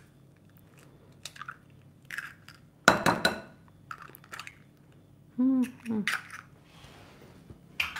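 Eggs knocked against the rim of a glass bowl and broken into ricotta: a sharp crack about three seconds in, with lighter taps and clinks of shell on glass before and after. A short hum of a woman's voice comes just past the middle.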